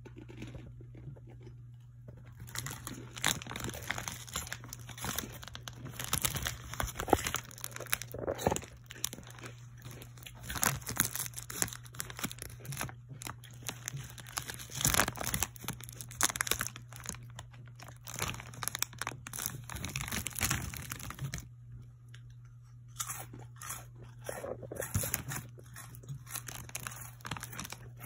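Plastic Funyuns snack bag crinkling and rustling as it is handled close to the microphone, in dense irregular crackles that start about two seconds in and break off briefly about three-quarters of the way through. A steady low hum runs underneath.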